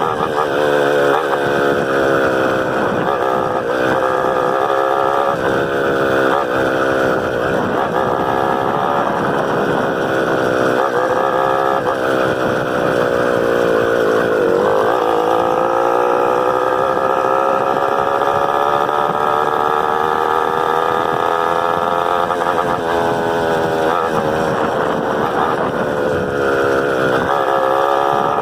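Honda CG 125's single-cylinder engine running on a ride, its pitch rising and falling as the throttle and gears change. About halfway through the pitch drops, then climbs slowly and steadily for several seconds as the bike accelerates.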